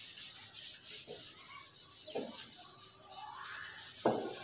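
Chalkboard duster rubbing chalk off a blackboard in repeated wiping strokes, with a few knocks and a sharp one about four seconds in.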